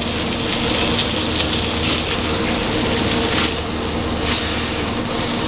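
Beef roast searing in hot oil in a skillet, sizzling with a steady hiss.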